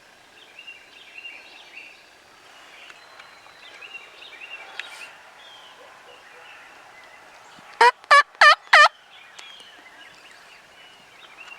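A turkey yelping: four short, loud notes about three a second, nearly 8 seconds in, over faint background birdsong.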